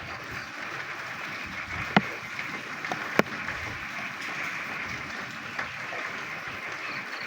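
Steady rain with a dense chorus of frogs croaking, heard as an even hiss. Two sharp taps stand out, about two and three seconds in.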